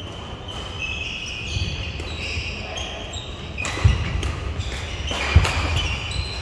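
Badminton players' court shoes squeaking on a sports-hall floor during a rally, with two sharp thumps about a second and a half apart in the second half.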